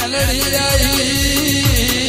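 Gujarati devotional folk song (regadi) music: a steady drum beat, about two thumps a second, under a held, wavering melodic line.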